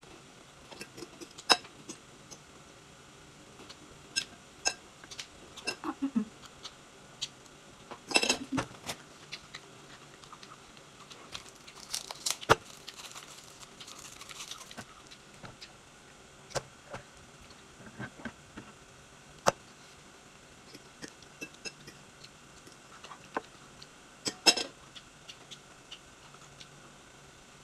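Close-up eating sounds: scattered sharp clicks and mouth smacks of chewing and handling toast, with a few louder clusters. There is a longer crinkly rustle near the middle, from a drinking straw's plastic wrapper being torn open.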